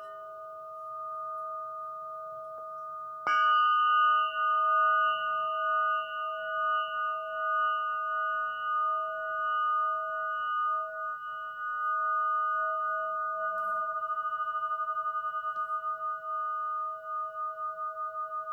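Quartz crystal singing instrument ringing with several steady, pure pitches. It is struck once about three seconds in, which renews the tone. The ring then sustains and takes on a slow, pulsing waver near the end.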